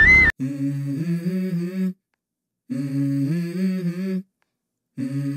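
A bamboo flute note with street noise cuts off just after the start; then a low hummed melodic phrase, about a second and a half long, comes three times with short silent gaps between.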